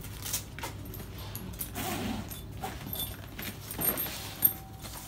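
Black nylon tool backpack being handled and its lid opened: rustling fabric and light clinks of the metal fittings, with a sharp click about four and a half seconds in.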